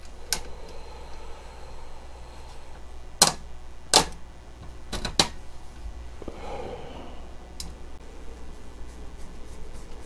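A handful of sharp, scattered metallic clicks as small screws are handled and set by hand against a metal computer case panel, the loudest two about three and four seconds in.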